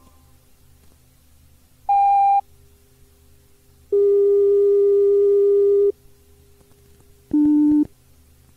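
Three steady electronic beep tones on a cassette recording of Shinkansen on-board announcements, over a faint hum. A short high beep comes about two seconds in, a longer lower tone of about two seconds starts about four seconds in, and a short, still lower beep comes near the end.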